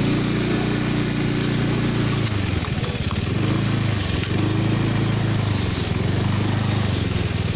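Small motorcycle engine running at low speed, its note easing off and picking up again a couple of times.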